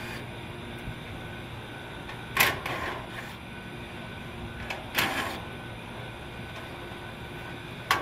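Three short metallic clatters, about two and a half seconds apart, from a rooftop air-conditioning condenser's sheet-metal casing and wire coil guard being taken apart, over a steady background hum.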